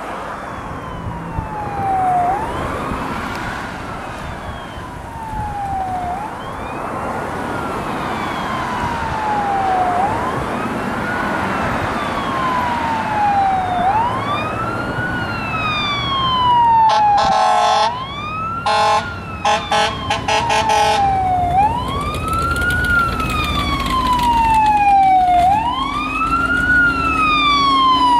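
Fire engine running code 3 with its siren wailing, rising quickly and falling slowly about every four seconds and growing louder as it approaches. About two-thirds of the way through, the air horn sounds in several short blasts, and the engine's low rumble grows near the end.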